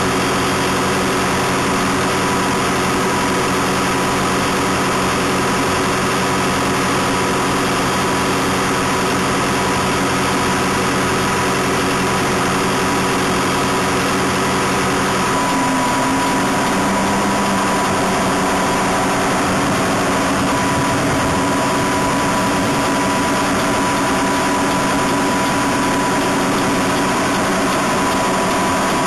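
A SAMSON raspberry harvester's engine and machinery running steadily under working load. The tones shift slightly about halfway through.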